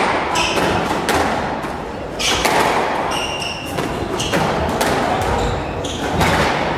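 Squash rally: a series of sharp thuds from the ball being struck by rackets and hitting the court walls. Short high squeaks from court shoes on the wooden floor come between the hits.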